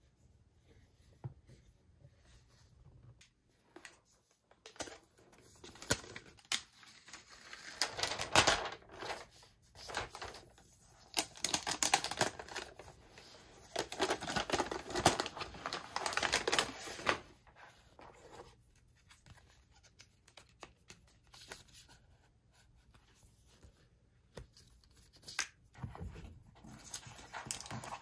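Unboxing handling noises from a MacBook Pro's cardboard box and its packaging: scattered taps and clicks, and stretches of crinkling and rustling as the laptop's protective film wrap and paper wrapping are handled. The rustling is loudest in two longer stretches in the middle.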